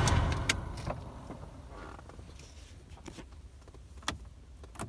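Inside a Holden VY Commodore's cabin: a faint low steady hum with a few sharp clicks, one about half a second in and two more near the end, like dashboard or climate-control switches being pressed.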